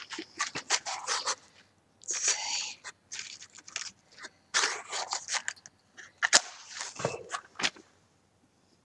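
Matches struck against a matchbox to light a candle: several scratchy strikes in separate bursts, with small clicks of the box being handled between them.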